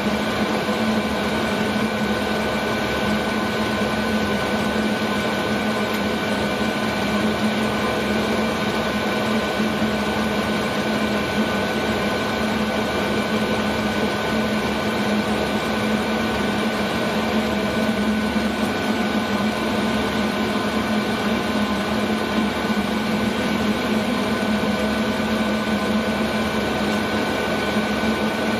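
Chinese 5 kW, 12 V diesel air heater running steadily: an even rushing blow with a constant hum and several thin steady whines from its fan motor, unchanging throughout.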